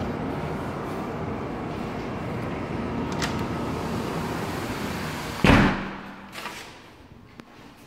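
Steady rumbling noise, then a single loud thump about five and a half seconds in, after which the noise falls away to a much quieter background.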